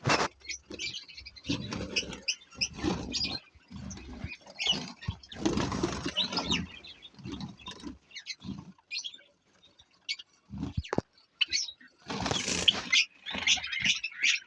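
White Java sparrows in a breeder colony giving many short, high chips and calls, with bursts of wing flapping and rustling as the birds move about.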